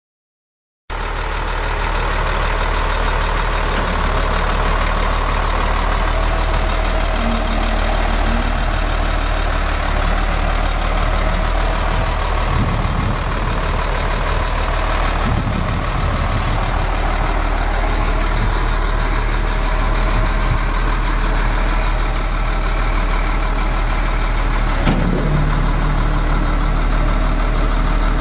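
2003 Ford F650 Super Duty dump truck's engine running steadily, starting about a second in. Near the end a new steady tone joins it as the hydraulic hoist raises the dump bed.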